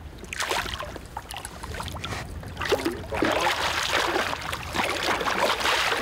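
Hooked zander splashing and thrashing at the water's surface as it is played on a spinning rod. The splashing grows louder from about three seconds in.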